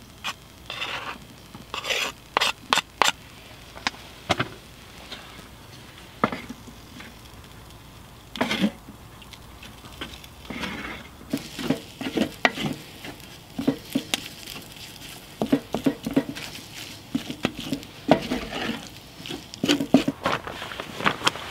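Corned beef hash frying in a steel pan on a wood stove: a knife scrapes and clicks as the diced corned beef goes off the cutting board into the pan. From about ten seconds in, a wooden spatula stirs, with a dense run of short scrapes and knocks against the pan.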